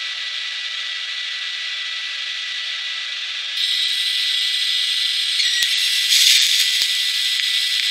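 TIG welding arc hissing steadily on steel plate. A quieter steady hiss with a thin high whine steps up louder and fuller about three and a half seconds in, with a brief louder flare near six seconds.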